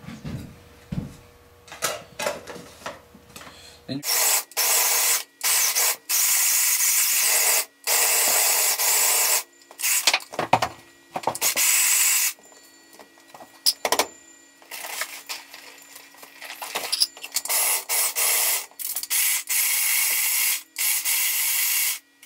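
Small electric mini food chopper grinding dry cat food kibble. It runs in a series of pulses a second or two long with short breaks, its motor humming under the rattle and grind of the blades breaking up the pellets. The pulses begin about four seconds in, after a few light handling clicks.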